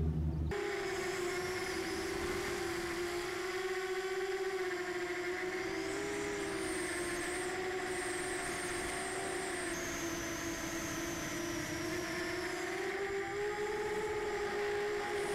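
Mini quadcopter's brushless motors and propellers whining at a steady pitch that drifts slowly up and down with throttle, heard close up from a camera on board the quad. The sound starts abruptly about half a second in.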